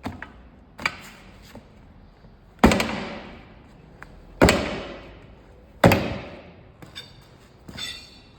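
Three heavy hammer blows on a steel split-rim truck wheel, each ringing out and fading over about a second, with a few lighter knocks before them and a short rattle near the end.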